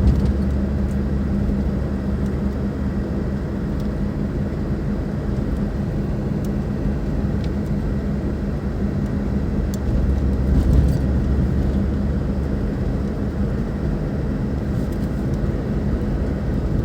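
Car engine idling steadily, with a few faint clicks over it.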